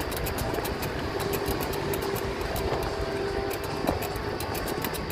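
Steady rumble of wind and road noise picked up while riding a bicycle, with a faint hum running through it.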